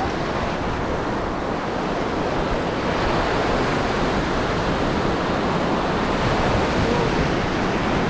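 Sea surf breaking and washing in over shallow water at the shoreline: a steady rush of waves and foam, swelling slightly in the middle.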